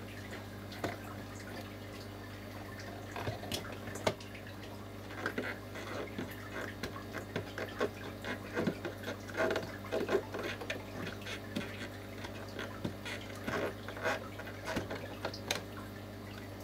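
Small plastic clicks and knocks as the hinged cover of a pond equipment switch box is opened and a data logger's leads are worked loose from its terminals, over a steady low hum. The clicks come thickest in the middle and tail off near the end.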